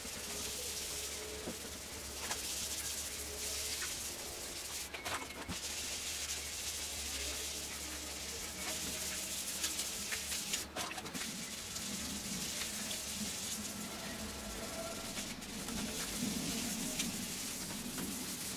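Clearcoat on a car's boot lid being wet-sanded by hand with 1500-grit wet-and-dry paper and soapy water: a steady wet scrubbing of paper on paint, flattening out orange peel, with small clicks here and there.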